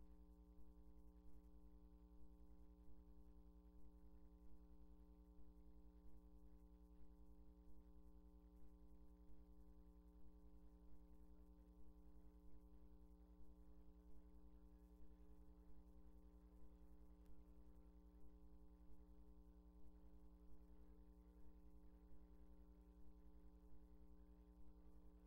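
Near silence with a faint, steady, unchanging hum.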